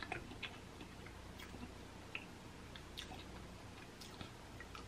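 Faint eating sounds: scattered soft, wet mouth clicks of chewing boiled egg in sauce.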